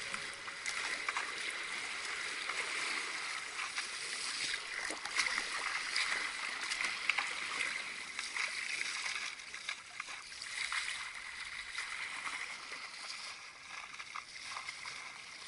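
Sea water splashing and rushing against a surfski's hull as it is paddled through choppy water, with irregular small splashes throughout.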